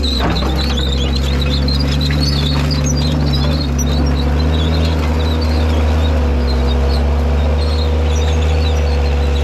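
John Deere 326D skid steer's diesel engine running steadily as the machine drives on steel over-the-tire tracks across loose fill.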